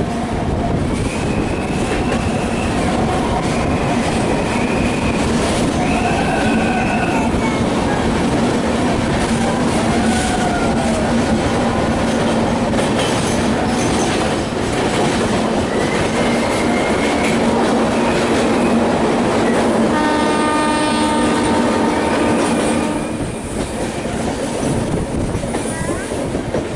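Passenger train running through a tunnel: a loud, steady rumble and clatter of wheels on rails echoing off the tunnel walls, with short high wheel squeals now and then. About twenty seconds in the horn sounds for about three seconds, then the noise drops as the train comes out of the tunnel into the open.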